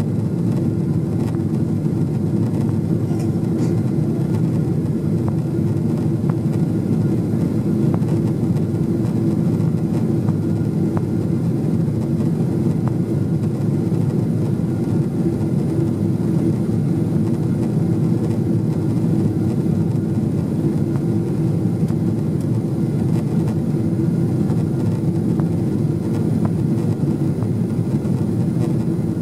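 Steady cabin noise of a jet airliner in flight: an even low rumble of the jet engines and airflow, with a faint steady hum and no change in pitch or level.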